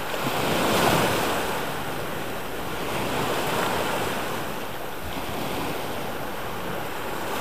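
Sea waves washing on the shore with wind buffeting the microphone: a steady rushing noise that swells about a second in and again a few seconds later.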